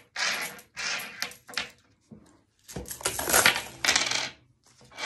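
Metal coins being counted by hand on a wooden table: a few short clinks and slides of single coins, then a longer, louder jumble of coins clinking together from just under three seconds in.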